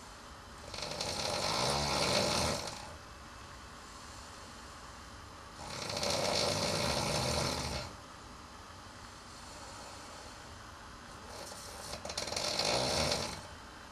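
A sleeping person snoring loudly: three long snores, each lasting about two seconds, coming about five seconds apart.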